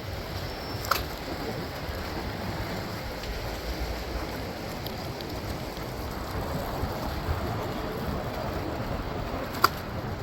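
Steady rushing wind and road noise from riding an electric scooter through city traffic. A sharp click comes about a second in and another near the end.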